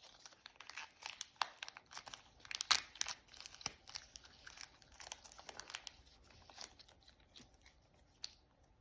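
Small plastic wrapper crinkling and tearing as it is opened by hand, a run of sharp crackles that is densest in the first few seconds and thins out later.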